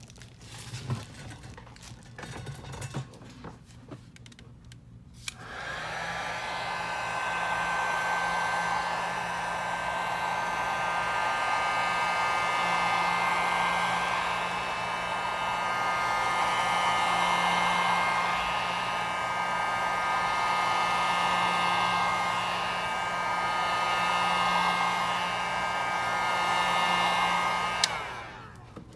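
Electric heat gun switched on a few seconds in and blowing steadily, a fan rush with a steady motor whine that swells slightly, until it is switched off near the end. It is heating around the edges of an iPhone X to soften the screen adhesive before prying. A few faint handling clicks come before it starts.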